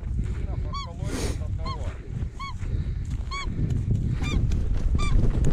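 Goose honking: a steady run of short single honks, a little more than one a second, with wind rumbling on the microphone underneath.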